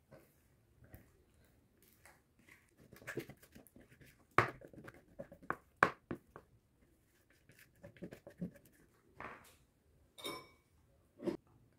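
A spatula scraping thick cake batter out of a plastic mixing bowl into a springform pan: a series of short, irregular scrapes and taps, a few sharper knocks among them.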